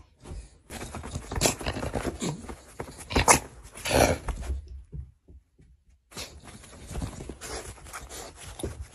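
Staffordshire bull terrier giving short gruffs and grumbles while its paws thump and scuffle on a duvet, in irregular bursts with a brief silent break about five seconds in.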